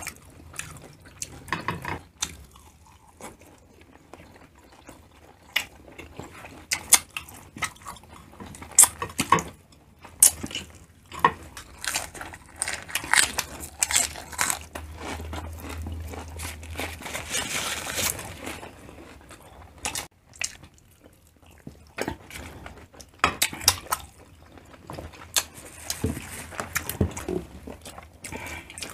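Close-up wet chewing and lip smacking of grilled pork intestine skewers (tumbong), with many short, irregular smacks and clicks.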